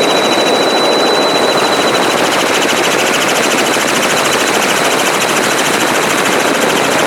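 Helicopter running, heard close up: a loud, steady rush with a very rapid, even pulsing from the rotor and a thin high whine that fades about two seconds in.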